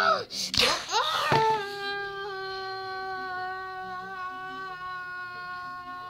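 A child's voice gives a short exclamation and a brief knock sounds about half a second in; then the voice holds one long cry at a steady pitch for about four seconds, slowly fading.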